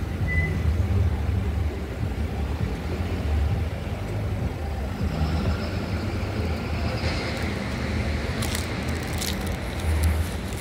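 City street traffic: a steady low rumble of road traffic, with a car's tyre noise rising and growing louder in the second half, a few light clicks near the end.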